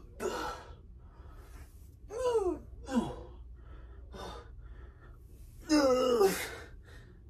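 A man's strained grunts and gasps of effort while squatting with a dumbbell, about five short cries falling in pitch, the longest and loudest near the end. They are the strain of a set pushed to muscle failure.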